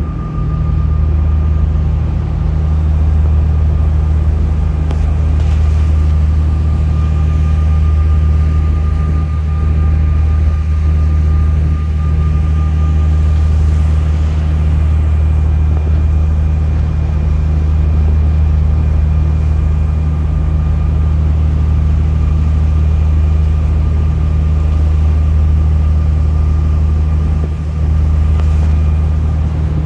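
Steady low engine drone with a faint high whine, heard aboard a car ferry underway.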